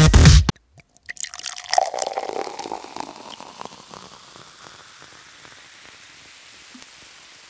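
Fresh juice pouring into a glass bottle. The splashing is loudest about two seconds in, then thins to a faint trickle and hiss.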